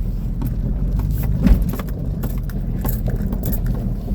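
Off-road vehicle driving over a rough dirt trail: steady low engine and tyre rumble with scattered rattles and knocks, and a heavier thump about a second and a half in.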